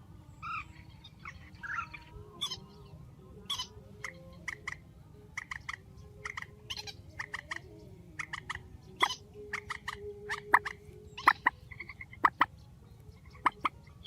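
Purple swamphen calling: a run of short, sharp call notes at irregular intervals, with a few longer wavering calls in the first couple of seconds, over a low steady hum.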